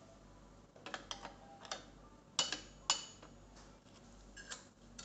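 Metal clicks and clinks as the parts of a bench oil friction-test machine are handled and fitted by hand, about eight separate knocks. The two loudest, about halfway through, ring briefly like struck steel. The machine's motor is not running.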